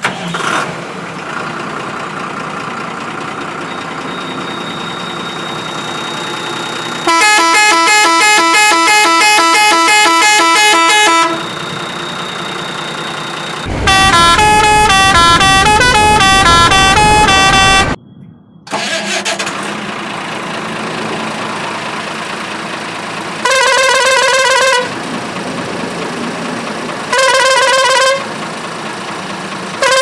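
Indian truck pressure horns: a musical horn playing a tune of changing notes about seven seconds in, a second tune from about fourteen seconds, then three shorter steady horn blasts in the second half. A diesel truck engine idles between the horn calls.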